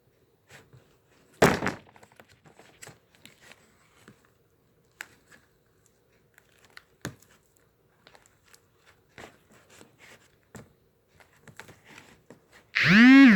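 Sticky slime being stirred and worked in a bowl: scattered small crackles and clicks, with one loud knock about a second and a half in. Near the end comes a short, loud pitched sound that rises and then falls in pitch.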